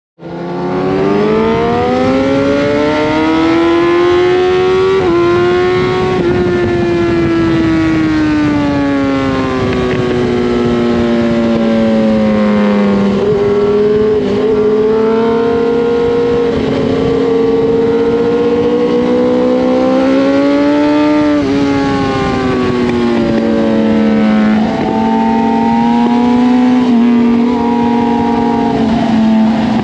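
Kawasaki ZX-10R's inline-four engine at high revs on a racetrack, heard from the bike itself with wind noise underneath. Its pitch climbs over the first few seconds, slowly sinks, climbs again, then drops sharply about two-thirds of the way in and steps up and down near the end with throttle and gear changes.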